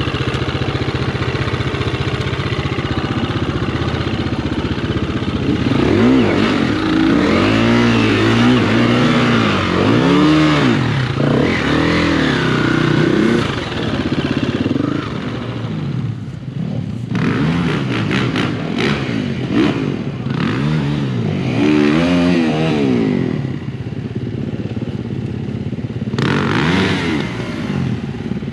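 Motocross bike's engine being ridden hard, its pitch repeatedly rising and falling with throttle and gear changes. Around the middle it settles lower with scattered clattering knocks, and picks up again near the end.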